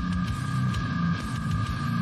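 Heavy slam/deathcore music playing: low, choppy chugging under two steady high-pitched held tones.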